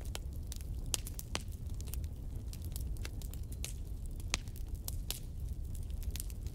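Steady low rumble with irregular crackles and clicks scattered throughout.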